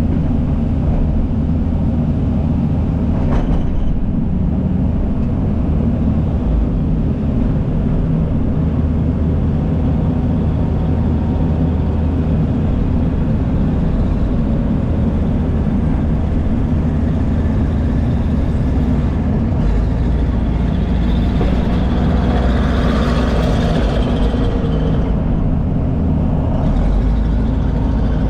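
Diesel engines of heavy earthmoving machines, a Case 450 crawler dozer and a John Deere excavator, running steadily under load, low and loud. For a few seconds about three-quarters of the way through, a harsher, higher noise rises over the engines.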